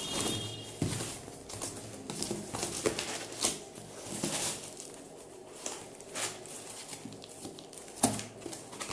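A cardboard box being pulled open and handled: flaps scraping, rustling and knocking in short irregular scuffs, with a sharper knock about eight seconds in.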